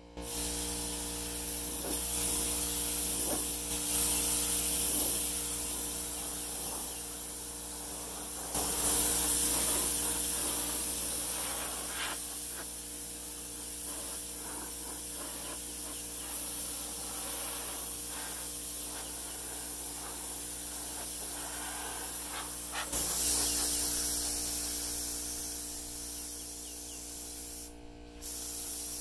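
Central Pneumatic 20 oz HVLP gravity-feed spray gun hissing as compressed air atomises paint onto sheet-metal panels, in long spray passes whose hiss swells and eases, with a brief break near the end.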